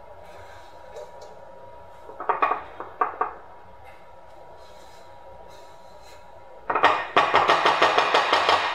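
Kitchen utensil striking and scraping a metal mixing bowl while batter is emptied into a loaf pan. There are a few clanks about two seconds in, then a quick rattling run of taps on the bowl near the end, knocking off the last batter.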